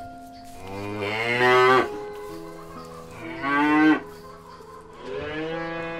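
Cows mooing: three moos in a row. The first two are the loudest and rise and fall in pitch, and the third begins near the end.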